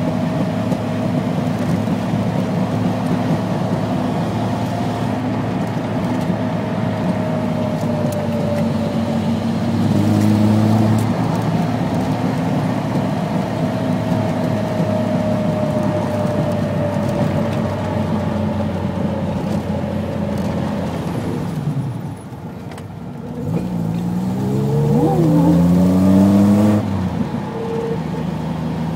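Triumph GT6's straight-six engine heard inside the cabin, running steadily under way. About 22 seconds in it eases off briefly, then rises in pitch as the car accelerates. Near the end it drops off sharply, as at a gear change.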